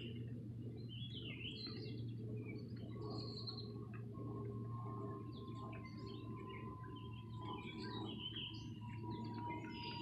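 Small birds chirping and calling, short scattered notes throughout, over a steady low hum. A faint, steady thin tone comes in about three seconds in and holds, sinking slightly in pitch.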